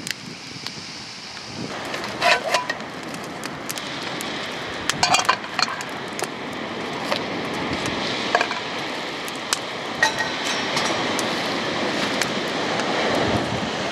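Steady rush of wind and an open wood fire, growing louder, with scattered sharp clinks and knocks of cooking gear being handled; the biggest clinks come about two seconds in and around five seconds in.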